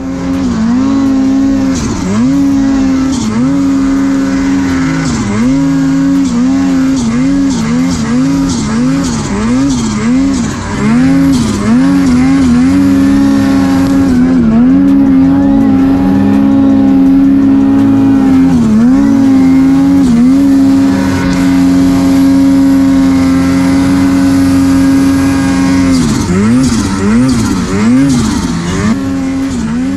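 Snowmobile's two-stroke engine running at high revs, its pitch dipping sharply and recovering again and again as the throttle is eased and reopened, with longer stretches held steady in the middle.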